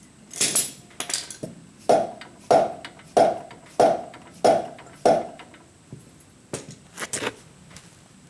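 Six evenly spaced sharp knocks, about three every two seconds, as the go-kart wheel is struck to push it onto its hub, with lighter clatter before and after. The wheel is binding on something inside its bore and won't seat; the owner suspects a burr.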